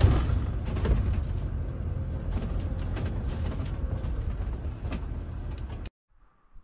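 Motorhome cabin on the move: steady engine and road rumble with scattered rattles and creaks from the interior, cutting off abruptly about six seconds in.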